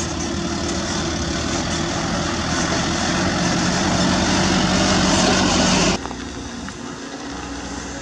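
Toyota Dyna 130HT turbo-diesel dump truck driving by, its engine growing louder as it passes. About six seconds in it cuts off suddenly and gives way to the quieter, steady engine of a CAT 320D2 excavator digging.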